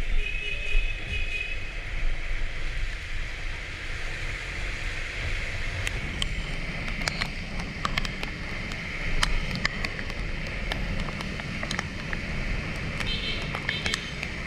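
Honda ADV150 scooter riding in the rain: a steady low wind rumble on the microphone and a hiss of tyres on wet road, with scattered sharp ticks, most from about halfway on, typical of raindrops striking.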